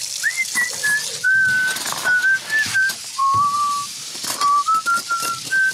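A person whistling a tune, one clear note at a time stepping up and down, over a busy background of small clicks and clatters.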